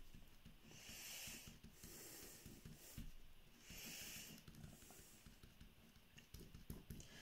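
Near silence: room tone with a few faint, soft hisses, each about half a second long.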